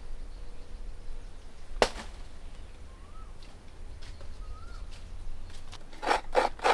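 Outdoor garden ambience with a steady low rumble, a single sharp snap about two seconds in, and two short, faint bird chirps. Near the end come a few quick taps and rustles as a wet banana leaf is handled.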